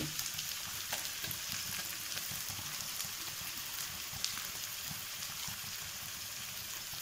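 Onions sizzling steadily as they fry in oil in a kadhai, with a few light clicks as a green paste of garlic, green chilli and ginger is scraped in from a steel bowl.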